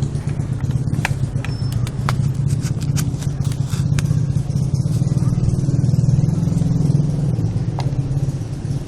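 A steady low engine-like hum, with a string of sharp cracks from about a second in to about four seconds, and one more near the end: shots from an M47A airsoft gun.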